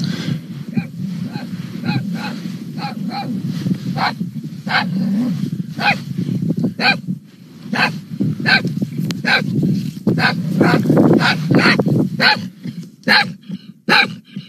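A small dog buried under a snow drift yapping over and over, muffled at first, the barks growing louder and clearer as it is dug out. A steady low rumble runs underneath.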